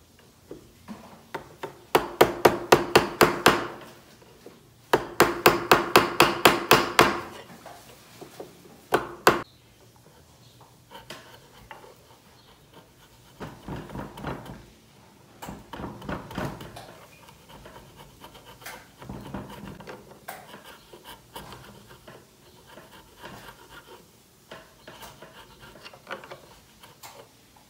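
Quick runs of hammer blows on a wood chisel chopping a notch in a wooden board, about seven blows a second, in two bursts and then two single blows. After that comes softer, uneven scraping as the chisel pares wood out of the notch.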